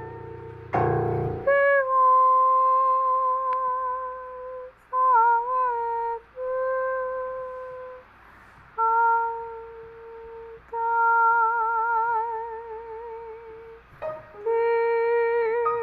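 Music: a slow melody of long held notes, several of them wavering with vibrato, with a brief noisy burst about a second in.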